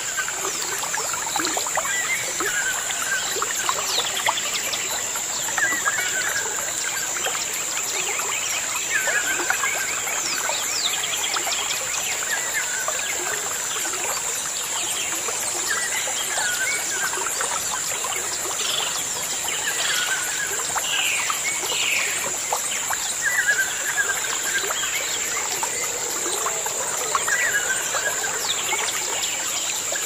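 Birds calling over a steady hiss: a short hooked call repeats every two to three seconds among many quick chirps, with a constant high-pitched hiss underneath.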